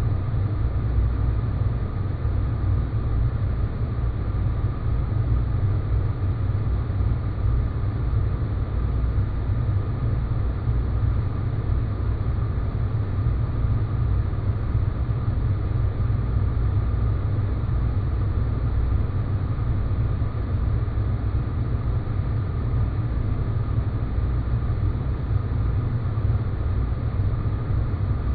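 Sci-fi space-planet ambience: a steady, unchanging low rumble with a thin hiss above it and a faint steady high tone.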